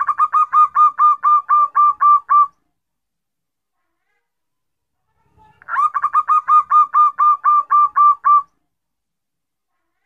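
Zebra dove (perkutut) song: two bouts of rapid staccato cooing notes, about five notes a second, each bout lasting about two and a half seconds with a pause of about three seconds between them.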